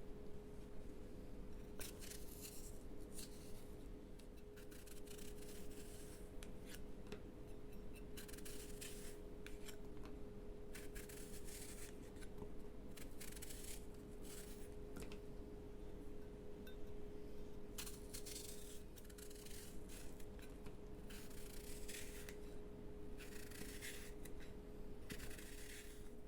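Irregular scraping and cutting strokes of a kitchen utensil during hand food preparation, each lasting up to about a second, over a faint steady hum.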